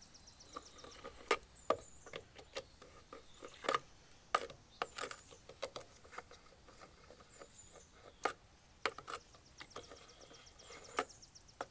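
Irregular light clicks and taps of plastic lug nut covers being unscrewed and pulled off a truck wheel by hand, with faint bird chirps behind.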